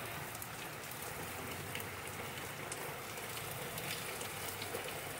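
Heavy flash-storm rain falling steadily: an even hiss of downpour with scattered sharper drop hits.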